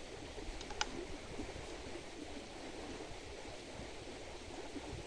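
Steady outdoor background noise, an even hiss like wind over the microphone, with one faint sharp click about a second in.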